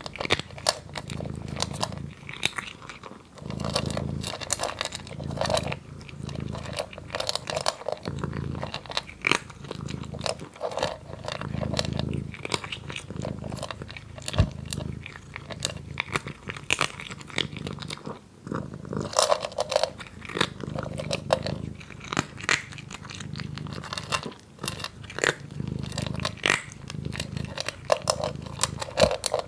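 A cat chewing crunchy dry kibble: rapid, irregular crunches as the pieces are bitten and broken.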